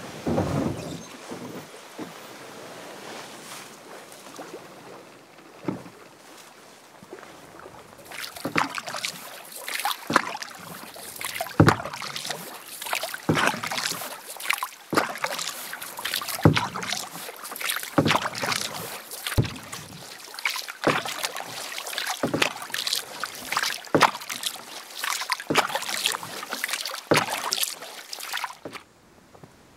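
A loaded canoe is shoved off into the water with a brief rush right at the start. Then come steady paddle strokes in lake water, about one every second and a half, each a splash with water running off the blade.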